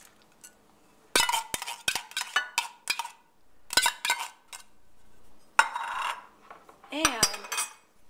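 Metal spoon clinking and scraping inside a tin can and against a glass casserole dish while the tomato sauce is scraped out: a run of sharp clinks and knocks, some of them ringing, with a short scrape about six seconds in.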